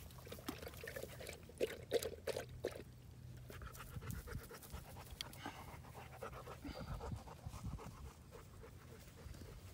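Large dog panting close by, quick rapid breaths strongest in the first few seconds.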